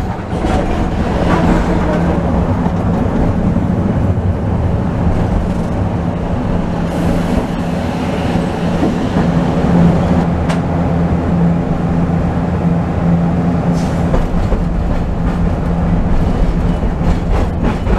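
Hiroden streetcar running along street track, heard from inside the car: a steady motor hum over the rumble of steel wheels on the rails, with a few light clicks.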